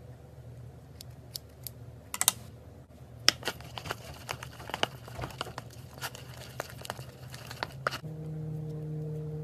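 Scissors snipping a laundry detergent pod, then a wooden stick stirring and scraping in a plastic bowl of glue and detergent: a dense run of small irregular clicks and taps. A steady low hum comes in near the end.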